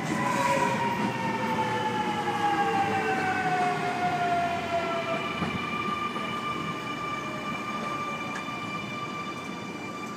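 Sydney Trains Millennium (M-set) double-deck electric train arriving and slowing. Its electric traction motor whine falls slowly in pitch over about five seconds, then holds at a steady hum as the train draws to a stop, over the rumble of the wheels on the rails.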